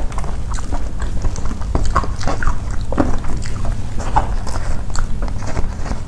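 Close-up eating sounds: chewing with small wet smacks and clicks, mixed with light crackling from fingers picking through crispy fried fish flakes and rice on a paper wrapper. A steady low hum sits underneath.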